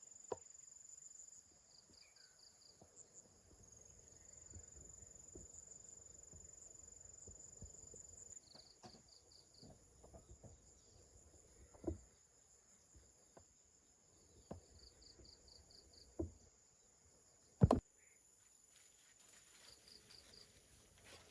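Insects chirping: a steady high buzz with short pulsed chirps every few seconds. A few sharp knocks cut through, the loudest about three-quarters of the way in.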